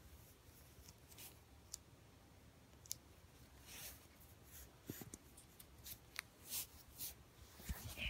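Faint scattered clicks and short rustles of a G-Shock DW-6900's resin strap and buckle being handled and fastened onto a wrist.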